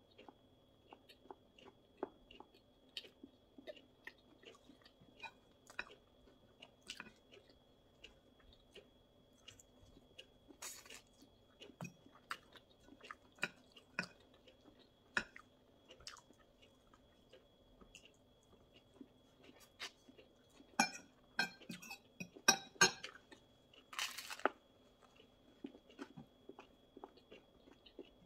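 Close-miked chewing of pizza and salad: wet mouth clicks and crunches from the crust, with a run of louder crunches about twenty seconds in.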